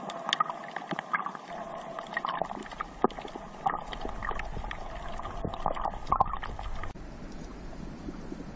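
Underwater water noise picked up by a submerged camera: a gurgling, bubbling wash with scattered sharp clicks and crackles. About seven seconds in it turns quieter and steadier.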